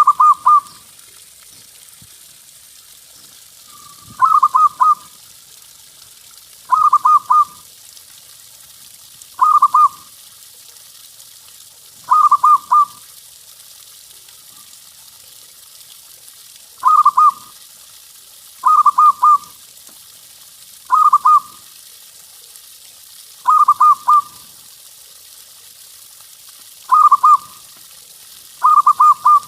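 Zebra dove (perkutut) cooing: a short stuttering phrase of quick notes repeated about every two to three seconds, eleven times, with one longer pause midway. A faint steady hiss lies under it.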